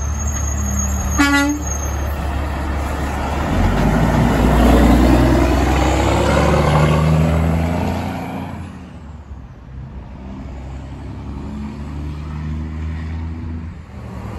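A Kenworth W900 semi gives one short blast on its Hadley air horn about a second in. Its diesel engine then passes close by, loudest in the middle and fading away after about nine seconds.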